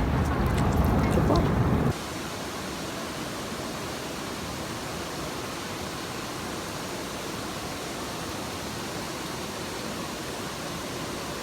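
About two seconds of low rumble with a few light crackles, then a sudden cut to a steady, even hiss of background noise that runs on unchanged.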